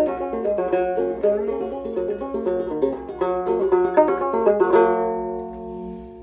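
A cedar-and-cherry banjo being picked in a quick run of bright plucked notes. About five seconds in it ends on a final chord that is left to ring and fade away.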